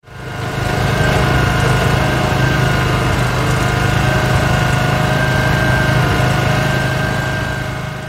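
Heavy construction machine's engine running steadily with an even hum. It fades in over the first second and fades away near the end.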